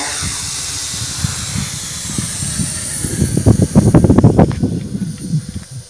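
Toy quadcopter's small motors and propellers giving a steady high hiss and whine, rising in pitch about two seconds in as it climbs away. From about three seconds in, loud irregular wind gusts buffet the microphone.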